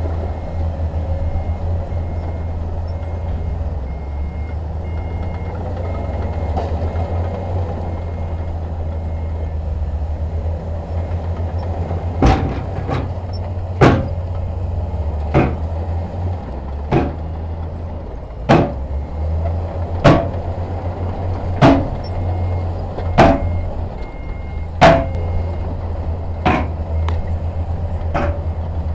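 Heavy earthmoving machine's diesel engine running steadily. About halfway through, sharp knocks begin and repeat evenly, roughly one every second and a half.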